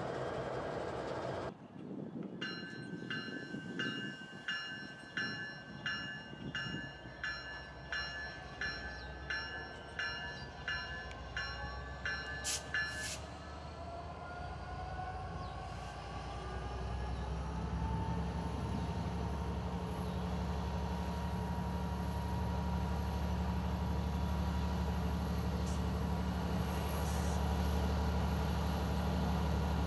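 A bell rings about one and a half times a second for some ten seconds, then stops. After it, the diesel engine of a Norfolk Southern GP59E, running with an RP-M4C slug, comes in: its pitch rises and it grows louder, then holds a steady low drone as the locomotive works toward the camera.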